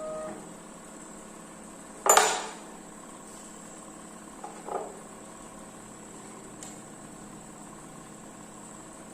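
Hard objects knocked or set down while working: one loud clattering knock with a short ring about two seconds in, a smaller knock around the middle and a faint click later, over a steady background hum.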